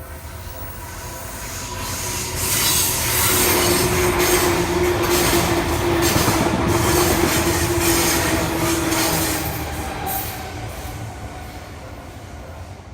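Seibu Shinjuku Line electric train passing close by, its rumble building, loudest for several seconds with a steady whine over it, then fading away.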